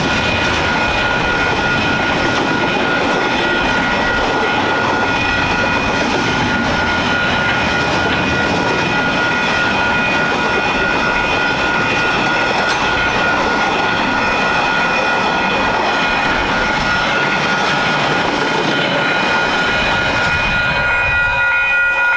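Container wagons of a freight train rolling past over a level crossing, a steady dense rattle of wheels on rail, with the crossing's alarm bells ringing as steady high tones over it. The rolling noise drops away near the end as the last wagon clears, while the bells keep ringing.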